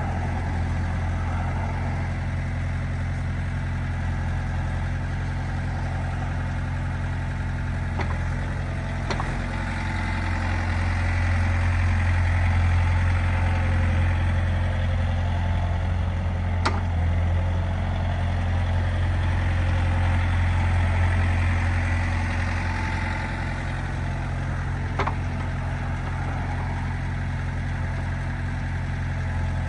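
Wacker Neuson 3503 mini excavator's 32-horsepower Yanmar diesel running steadily. From about ten seconds in to about twenty-three seconds it gets louder and busier under hydraulic load as the upper structure swings round and back, with a few sharp clicks along the way.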